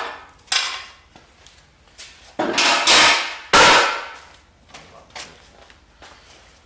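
Metal clanks and knocks from teardown work on a 5.3 LS V8: a sharp knock about half a second in, then two louder, longer clanks around three seconds in, each ringing briefly.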